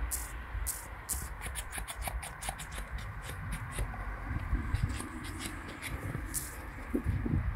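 Crisp crunching and scraping in snow: a quick run of sharp crackles for a few seconds, then one more near the end, over a low steady rumble.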